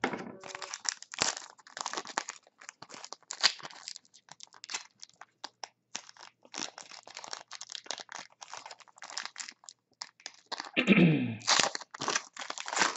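Crinkling and crackling of a trading-card pack wrapper being torn open and handled, with cards being shuffled, as a run of irregular crackles and clicks. Near the end comes a short, louder sound that falls in pitch.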